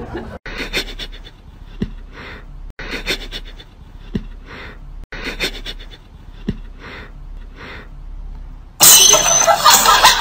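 A cat sniffing hard at a sock: a series of short breathy huffs with a soft click now and then, broken by a few brief dropouts. Loud music comes in near the end.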